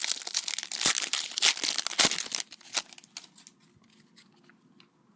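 Wrapper of a Panini Prizm trading-card pack crinkling and tearing as it is opened: dense rustling for about two and a half seconds, then a few light clicks and then quiet.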